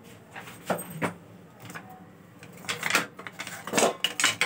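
Kitchen clatter: short knocks and clicks of utensils and containers being handled. Two single knocks come about a second in, then a quicker run of them near the end.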